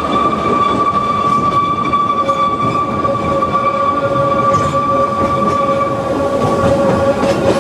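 Ōigawa Railway Ikawa Line train running, heard from on board: a steady rumble of wheels on the track with a high, steady wheel squeal. A second, lower squeal joins a little over two seconds in, and the high one fades near the end.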